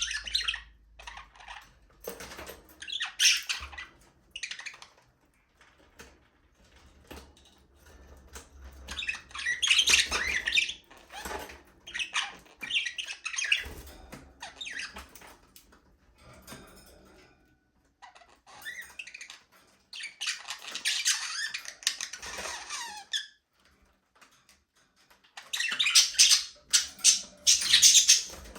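Budgerigars chattering and squawking in bouts of rapid high warbling calls, with short quiet gaps between bouts.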